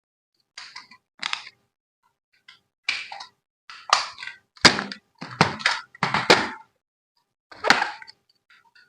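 Hard plastic being handled: about nine short knocks and clicks with silence between them, the sharpest near the middle.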